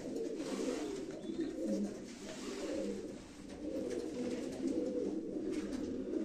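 Domestic pigeons cooing continuously in a small concrete loft, with a short lull about three seconds in.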